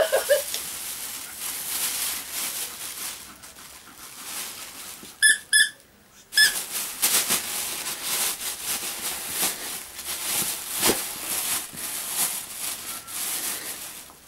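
Thin plastic shopping bag rustling and crinkling as a dog noses and chews inside it, with three short high squeaks from a toy squeaker about five to six seconds in.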